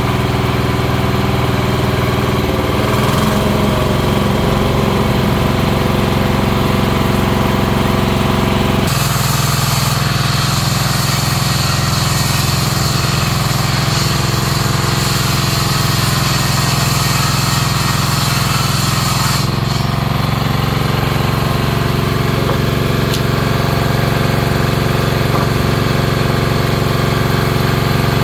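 Small stationary engine running steadily, driving a sawmill's saw table. From about a third of the way in to about two-thirds, a higher, hissing cutting noise joins it as the saw rips a long board.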